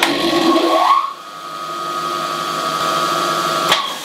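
Axminster Trade AT3352B bandsaw switched on. The motor and blade spin up with a rising whine over about a second, then run with a steady hum. Near the end there is a click as it is switched off and the electric brake starts stopping it.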